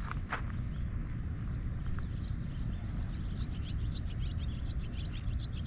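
Birds chirping in quick, repeated high notes that grow thicker from about a second and a half in, over a steady low rumble.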